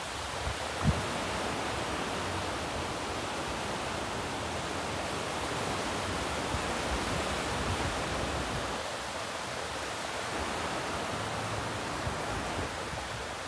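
Steady rushing wash of surf breaking along the shore, with one brief thump about a second in.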